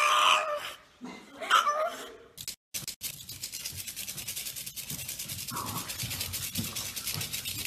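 A puppy gives two pitched vocal calls, the first about a second long and the second short about a second and a half in. After them comes only a faint, steady scratchy noise.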